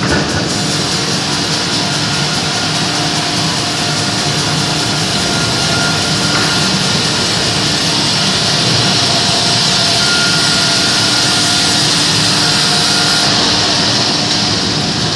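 Serra ME 110 band sawmill sawing a frozen log: the machine runs steadily and the blade cuts through the wood with a loud, even hiss.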